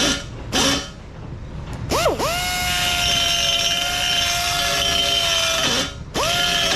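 High-speed rotary tool whining as it reams powder coat out of bolt holes in steel sub-frame connectors. It gives two quick bursts, then spools up for one long steady run of about four seconds and winds down, then starts again near the end.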